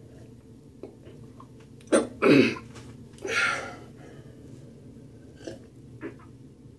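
A man's throat noises as he drinks hot apple cider vinegar water: two short, harsh sounds about two seconds in, then a breathy exhale about a second later, a reaction to the sour taste. A few faint clicks follow.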